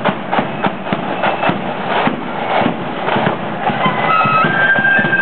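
Marching band passing, its drums beating a steady march rhythm of about two and a half strokes a second; a high wind-instrument melody comes in over the drums about three and a half seconds in.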